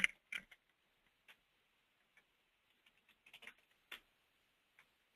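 Faint mouse clicks and computer-keyboard keystrokes: a few sharp clicks near the start, then a scattered run of key taps about three to four seconds in.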